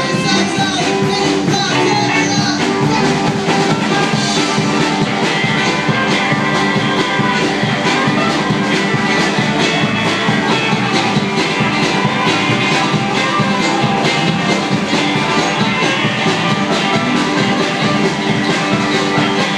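Live folk-rock band playing with a steady drum beat: drum kit, acoustic and electric guitars, bass, bowed fiddle and trumpet.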